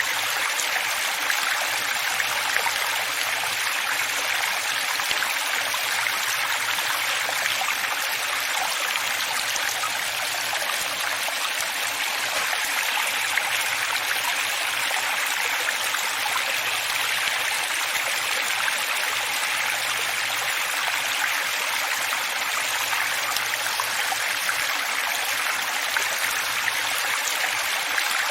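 Running water flowing steadily: an even, bright rush with little deep rumble, unchanging throughout.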